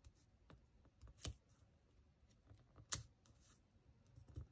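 Faint, scattered clicks and taps of fingers handling a sticker on paper planner pages, with two sharper ticks about a second in and near three seconds in.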